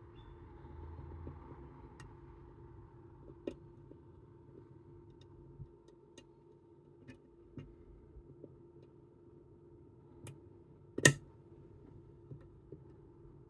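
Scattered faint metallic clicks and ticks of picking tools working inside a Chubb Detector lever lock, with one much sharper click about 11 seconds in.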